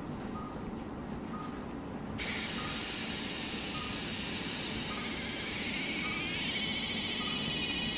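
High-speed surgical micro-drill fitted with a 0.6 mm diamond burr. It starts about two seconds in and runs with a steady high-pitched whine while drilling a hole through the bone of the ear, its pitch shifting up a little about six seconds in.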